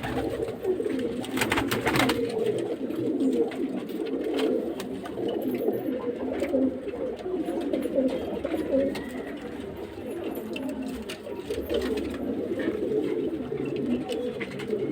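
A flock of domestic pigeons cooing continuously, many overlapping low calls at once, with a few sharp clicks about two seconds in.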